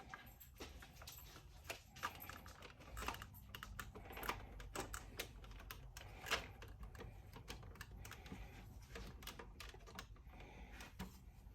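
Faint, irregular clicks and taps of the plastic casing parts of a Sax-A-Boom toy saxophone being handled and fitted together, with a louder click about six seconds in.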